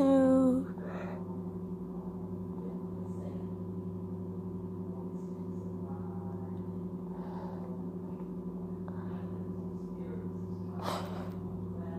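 Steady low hum of a few fixed tones, unchanging throughout, with a short noise burst about eleven seconds in.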